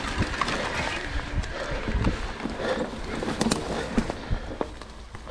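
Mountain bike riding along a trail: tyre and wind noise with scattered sharp knocks and rattles from the bike over rough ground.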